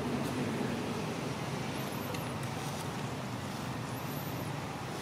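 Steady low background rumble like distant traffic, with a faint, very high chirp about every two seconds.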